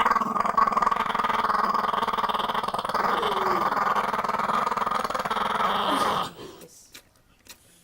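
A dog growling in one long unbroken run that cuts off suddenly about six seconds in, followed by a few faint clicks.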